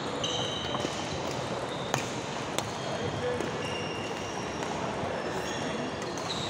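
Badminton rally on a wooden sports-hall court: two sharp racket-on-shuttlecock hits about two seconds in, and short squeaks of court shoes on the floor, over a steady background of voices and play from other courts.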